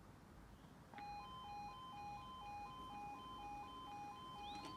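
Level crossing warning alarm starting about a second in: an electronic two-tone sound alternating between a lower and a higher note about twice a second. It signals that the crossing sequence has begun and a train is approaching.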